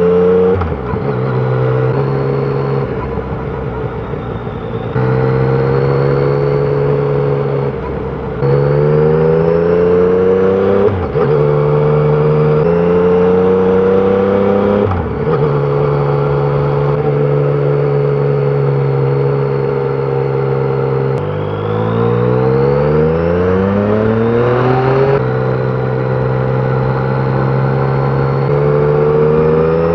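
Yamaha Tracer 900's three-cylinder engine through its stock exhaust, pulling through the gears: the pitch climbs, drops sharply at each of several clutch-operated shifts, and holds steady between them. About two-thirds through it revs up hard and steeply before the next shift.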